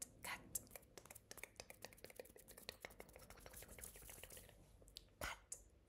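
Faint handling noise at a laptop: scattered soft clicks and rustles, with one sharper click a little after five seconds in as a hand reaches to the laptop.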